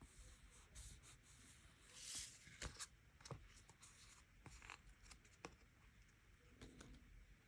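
Faint desk sounds of diary-decorating: a soft papery rustle about two seconds in, then scattered light taps and clicks of pen, paper and stickers being handled.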